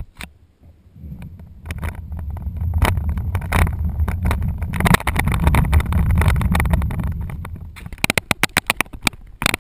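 Plastic wagon rolling over concrete: a low rumble from the wheels with rattling clicks from the wagon body, starting about a second in, strongest in the middle and easing off, then a quick run of clicks near the end.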